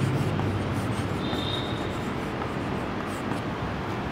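Writing on a board: irregular writing strokes over a steady room hiss, with a brief high squeak about a second in.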